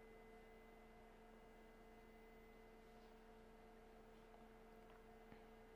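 Elegoo Mars 5 Ultra resin printer's Z-axis stepper motor lowering the build plate toward the resin vat at the start of a print: a faint, steady whine, with one faint click near the end.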